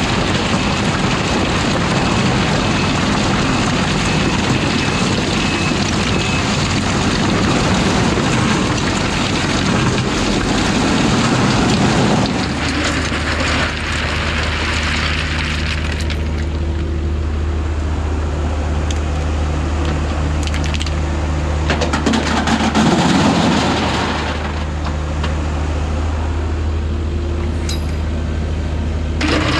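Mini excavator at work: a dense rushing, rattling noise like rock and gravel moving fills the first twelve seconds. Then a steady low diesel engine hum takes over, broken twice by short bursts of louder noise.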